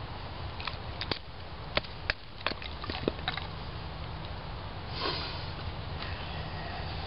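Split cedar sticks knocking together with a few sharp wooden clacks as they are handled and laid on a pile, most of them in the first three seconds, then a brief rustle about five seconds in.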